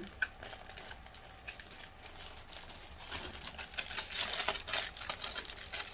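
Plastic packaging crinkling and rustling as it is handled, in irregular crackles that grow louder about three and a half seconds in.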